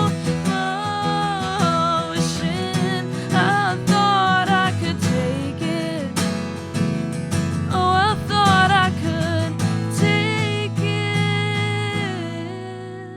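A band with acoustic guitar plays the closing section of a song, with a wavering melody line on top. The music dies away near the end.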